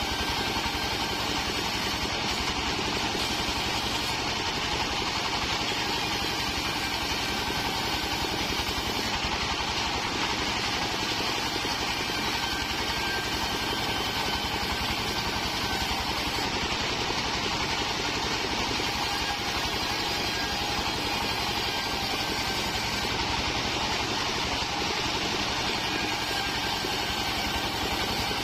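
Stationary engine driving a portable band sawmill, running steadily, with the band blade sawing through waru (sea hibiscus) planks fed across the table.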